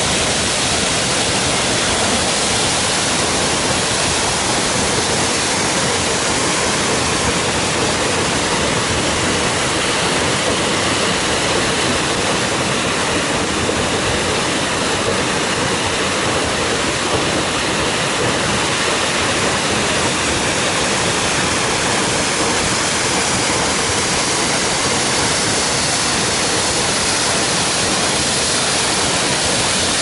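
Waterfall plunging into a rock-walled pool: a loud, steady rush of falling water that never lets up.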